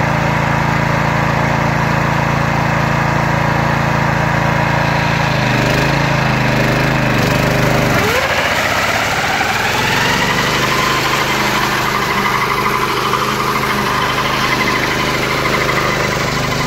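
Small petrol engine of a Ruris 751KS walk-behind tractor running a sickle-bar mower through tall grass. About eight seconds in, the engine note drops suddenly, then climbs back up over the next few seconds.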